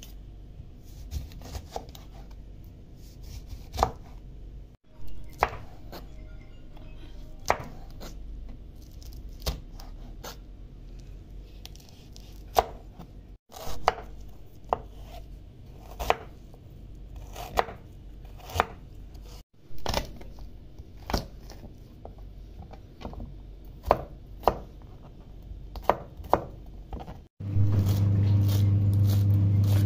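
Kitchen knife chopping on a plastic cutting board: sharp separate knocks, irregularly spaced about one every second, as lemon and then coriander are cut. Near the end a loud steady low hum comes in.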